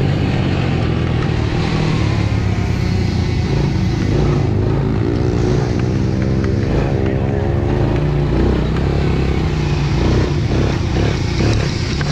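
Honda TRX90 youth ATV's small single-cylinder four-stroke engine running under throttle, heard close up from the rider's helmet. Its pitch rises and falls as the throttle changes, with a clear glide near the middle.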